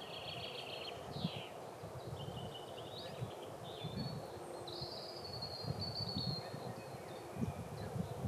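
Outdoor ambience of small birds singing in short chirps and trills over a steady hiss, with irregular low rumbles underneath.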